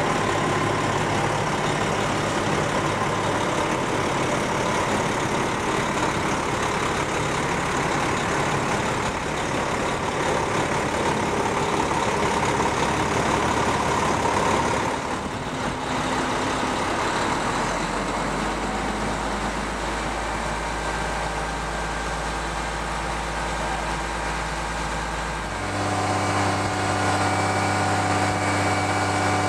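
Diesel engine of a Volvo VHD roll-off truck (a 320 hp Cummins) idling steadily. Its low hum changes abruptly about halfway through and again near the end.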